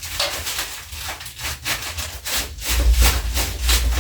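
Rhythmic scraping, a little under three rough strokes a second, with a low rumble that grows stronger near the end.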